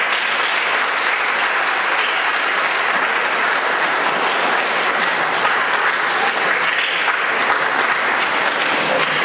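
A crowd applauding steadily, many hands clapping together, echoing in a school gymnasium.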